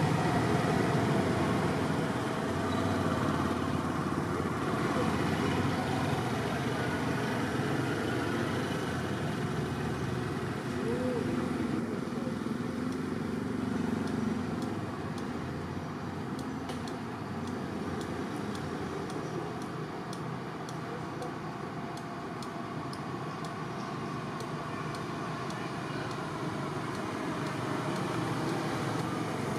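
Steady outdoor background noise, an even low rumble like distant road traffic.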